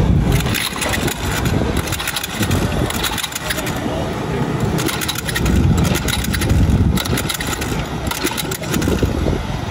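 Small single-cylinder Tecumseh HS40 engine on a vintage mini bike being pull-started by hand: several pulls of the recoil starter, each a short burst of the engine turning over. It does not settle into a steady run. This is a first start after restoration, with the carburetor left untouched.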